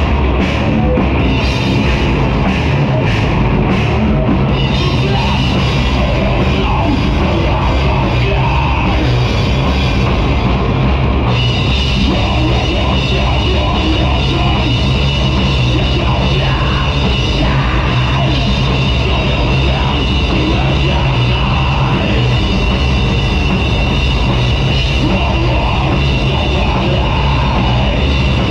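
Live heavy rock band playing at full volume: electric guitar, bass and drum kit with cymbal crashes. About eleven seconds in a held high note comes into the mix.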